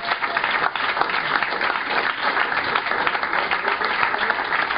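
Audience applause: many people clapping in a dense, steady patter after a song has ended.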